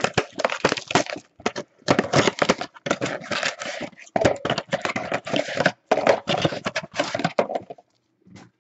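Plastic shrink-wrap crinkling and tearing as a trading card box is unwrapped and opened, with the cardboard box and packs handled: a dense run of crackles and rustles that stops for a moment near the end.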